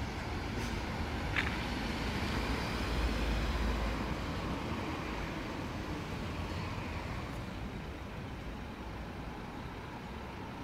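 Ambulance van's engine and tyres as it drives past close by, loudest with a deep rumble a few seconds in, then fading as it pulls away; no siren is sounding.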